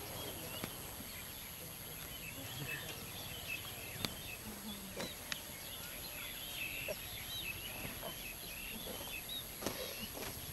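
Small birds chirping continuously in many quick, short calls, with a few sharp clicks now and then.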